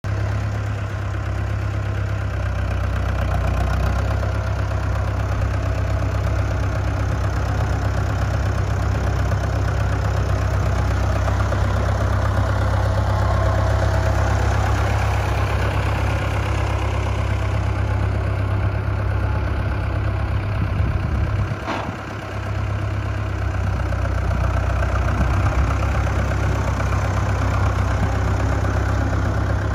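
Fordson Super Major tractor's four-cylinder engine running steadily at low revs as the tractor is driven around; the engine note dips briefly about two-thirds of the way through.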